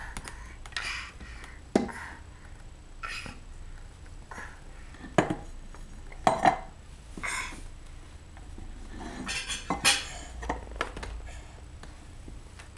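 Spoon and dishes clinking and tapping now and then: a child's feeding utensils knocking against a bowl or plate in short, irregular clicks.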